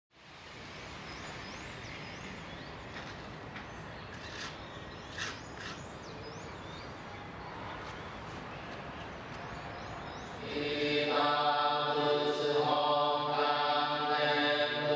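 Outdoor ambience: a steady background hiss with birds chirping repeatedly and a couple of sharp clicks. About ten seconds in, a man's voice begins Buddhist sutra chanting, held long on a steady pitch.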